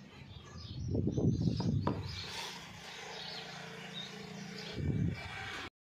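Handling noise and light knocks of a wooden block being picked up and turned over by hand on a stone tabletop, loudest between about one and two seconds in, over a low steady hum with birds chirping in the background. The sound cuts off just before the end.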